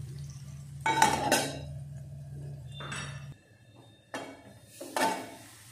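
Metal cookware clinking: a steel spoon and a steel plate lid knocking against an aluminium kadai. There are two sharp clinks about a second in, and a few more around three, four and five seconds, over a low steady hum that stops about three seconds in.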